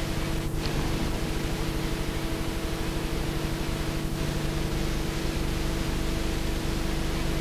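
Steady hiss with a constant low hum underneath, the background noise of an old film soundtrack, with no distinct events.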